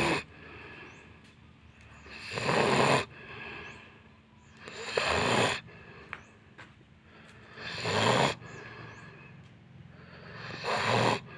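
A sleeper snoring, one loud snore about every three seconds, each under a second long, with quieter breathing between.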